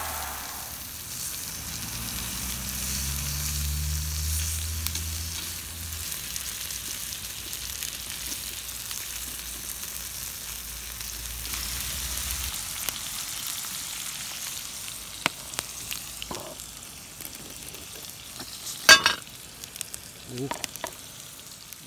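Food sizzling on a hot iron griddle over a cassette gas stove while it is stirred and turned with chopsticks, with a low hum under it for the first few seconds. Near the end come a few sharp clicks and one loud clack.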